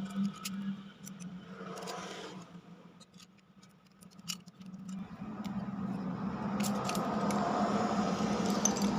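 Small metal clicks and scraping from hand tools prying a retaining clip off an air-conditioner indoor fan motor, over a steady low hum.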